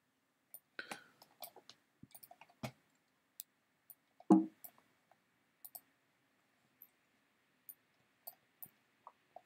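Scattered small clicks and ticks from a computer mouse and desk handling, with one louder short thump about four seconds in.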